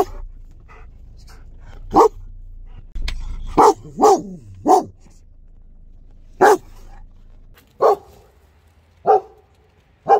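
A dog barking in loud single barks, about nine of them at uneven intervals.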